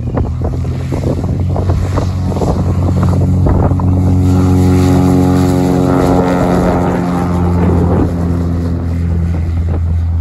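Piper PA-32-260 Cherokee Six's six-cylinder Lycoming O-540 engine and propeller at full takeoff power, a steady droning growl that grows louder as the aircraft passes close by about halfway through, then eases off slightly as it lifts off and pulls away. Wind buffets the microphone in the first couple of seconds.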